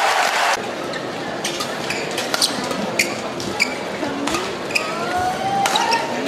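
Applause dying away about half a second in, then a badminton rally: a string of sharp racket-on-shuttlecock hits, with court shoes squeaking on the floor near the end.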